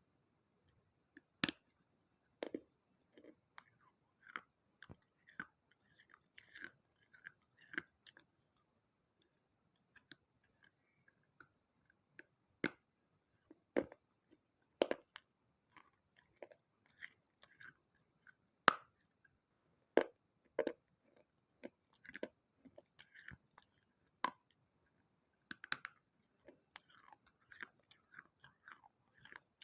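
Close-miked chewing and crunching of water-soaked terracotta pieces from a small clay pot and saucer: irregular sharp cracks and short gritty crunches with brief pauses between bites.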